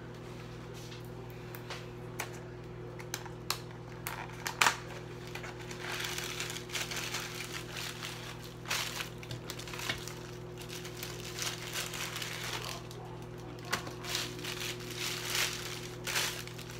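Cardboard box and plastic packaging of frozen sliced steak being handled and opened, crinkling and rustling in repeated bursts through the second half. There are a few sharp clicks and knocks in the first seconds, all over a steady low hum.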